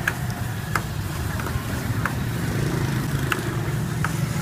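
Steady low rumble of street traffic, with a handful of sharp metal clinks as a ladle knocks against a steel wok.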